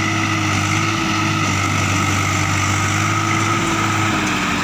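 Swaraj 744 FE tractor's three-cylinder diesel engine running steadily under load while towing a college bus that is stuck in the mud.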